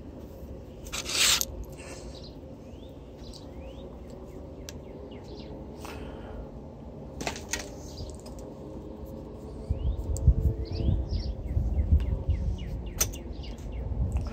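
Birds chirping in short rising notes, with scattered sharp clicks and a brief loud noisy burst about a second in. Strong low rumbling and bumping fill the last few seconds.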